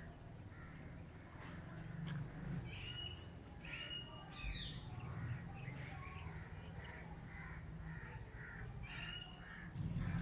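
Chickens calling: several harsh squawks, with a run of shorter clucking notes in the middle, over a steady low hum.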